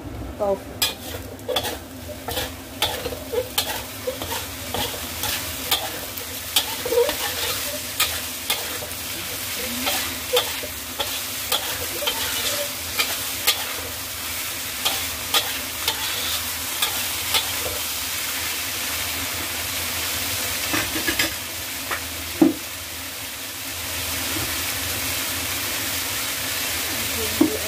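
Pork, pickled mustard root and freshly added tofu stir-frying in a hot pan: a steady sizzle with a spatula clicking and scraping against the pan, the clicks frequent for the first half and sparser later, with one sharp knock a little after the middle. The sizzle grows a little louder near the end.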